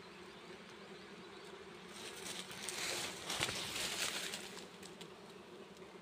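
Wild honeybees buzzing as a steady low hum. A louder rustling noise swells and fades in the middle.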